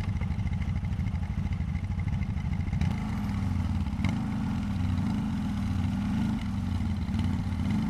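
An ATV engine running steadily under load, its pitch rising and falling slightly.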